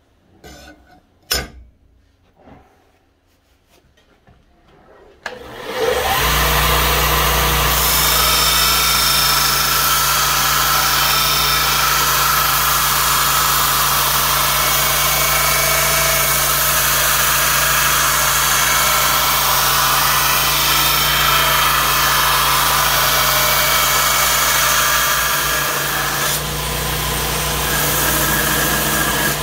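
A few clicks and knocks, then a belt grinder comes on about five seconds in and runs steadily, with its motor humming low and the abrasive belt hissing as it grinds the edge of a leaf-spring steel knife blade.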